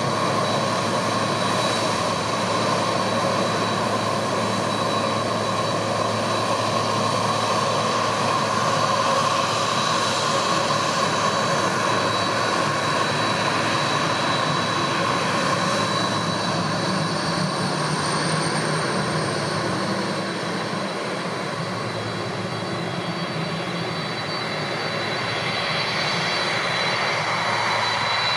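Boeing 767-300ER's two turbofan engines running at low taxi power as the airliner rolls close by, a steady jet whine with a high tone. It eases slightly in level a little past the middle, then comes back up near the end.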